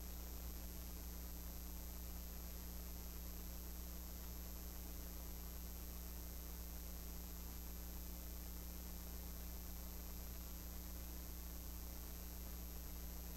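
Steady low electrical mains hum with faint hiss and a thin high-pitched whine above it, with no other sound standing out.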